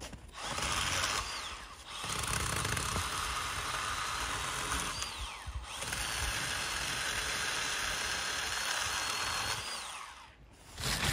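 Power saw cutting through a fallen branch in three runs, its motor whining steadily. At the end of each run the whine climbs and then winds down; the last and longest run stops about ten seconds in.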